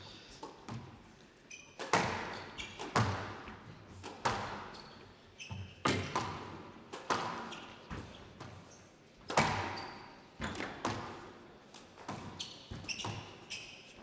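Squash rally: the ball cracks off rackets and court walls about once a second, each hit echoing in the hall. Short high squeaks of court shoes come between the hits.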